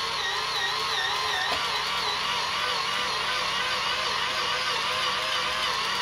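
Battery-powered Xtreme Power Dozer toy bulldozer's electric motor and gearbox whirring steadily, its pitch wobbling up and down, while it strains under the load of pushing a box holding a 35 lb toddler.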